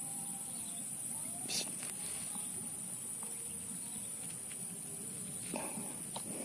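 Steady high-pitched drone of insects, with a couple of faint clicks about a second and a half in and again near the end.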